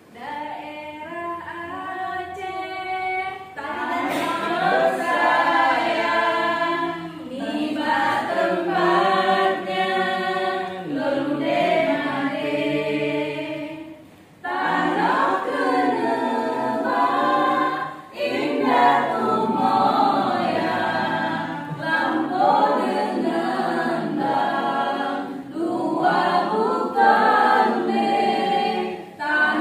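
Vocal music: a group of voices singing a cappella, in phrases with short breaks about 14 and 18 seconds in.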